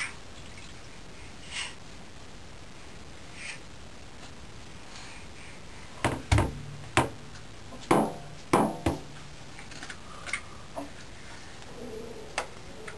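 Plastic bath-toy cups being banged by babies: a string of sharp, hollow knocks bunched together over a few seconds, with a few quieter taps before and after.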